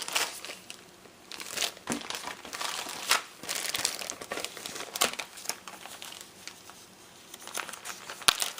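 Packaging crinkling and rustling in uneven bursts as it is handled, busiest in the first half and again near the end.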